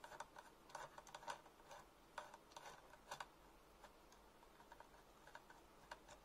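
Faint, irregular clicks and ticks, a few a second, as a thin hex screwdriver turns a long M3 screw into a 3D-printed cap, tightening it.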